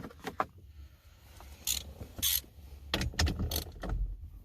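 Metal hand tools being handled: a socket and ratchet clicking and rattling in short, scattered bursts.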